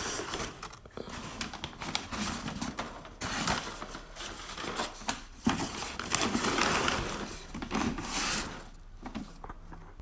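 Paper and cardboard packaging rustling and crinkling as it is handled, with irregular small taps and scrapes, quieter near the end.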